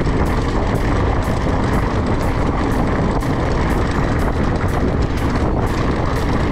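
Wind buffeting a GoPro action camera's microphone while riding an electric mountain bike: a loud, steady rushing noise, heaviest in the low end.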